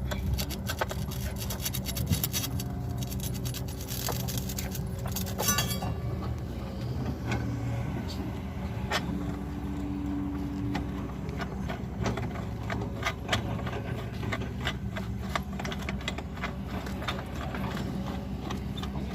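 Engine-driven asphalt core drill running steadily, with many sharp clicks and scrapes over the hum, densest in the first few seconds.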